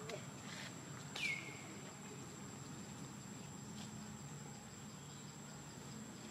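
Insects trilling steadily on one high note. About a second in comes a single short call that drops sharply in pitch and then holds briefly.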